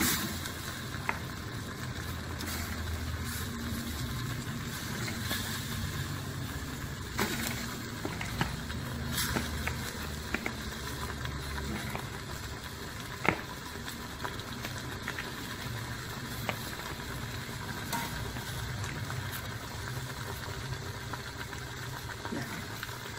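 Raw chicken pieces being laid into a pressure cooker over frying spice paste: scattered soft knocks and sharp clicks, with a faint hiss from the pan, over a steady low rumble.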